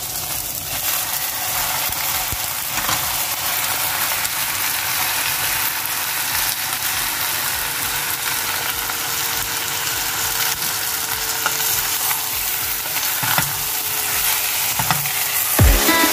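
Chicken pieces frying in hot oil with onions, tomatoes and whole spices: a steady sizzle, with a few knocks of a wooden spatula as the pot is stirred near the end.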